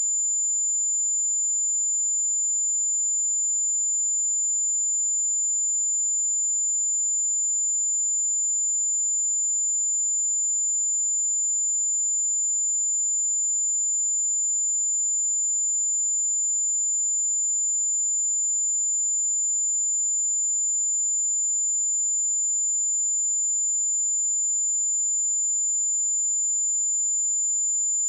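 A single steady 7092 Hz sine-wave test tone, one high-pitched pure whistle held at a constant level without change.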